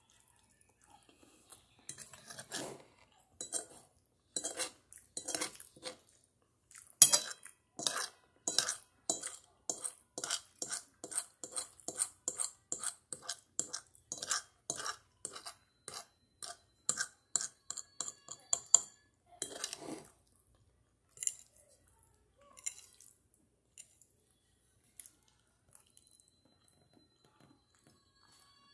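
A metal fork scraping and clinking against a ceramic plate while twirling spaghetti, in quick repeated strokes about two a second, some with a faint ring. After roughly twenty seconds they thin out to a few scattered clicks.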